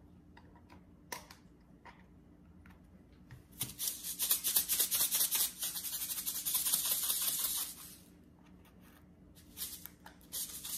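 Sea salt running out of its container in a dry, crackling hiss of grains for about four seconds, starting about three and a half seconds in, then again near the end. A few light clicks come before it.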